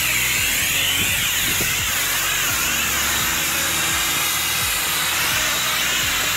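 Pressure washer running with a foam cannon spraying snow foam onto a car, a steady hiss over the machine's motor.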